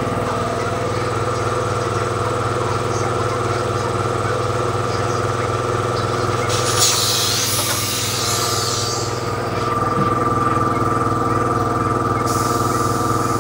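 Workshop air compressor running with a steady, even hum. A burst of compressed-air hiss comes from about six and a half to nine seconds in, and a fainter hiss starts near the end.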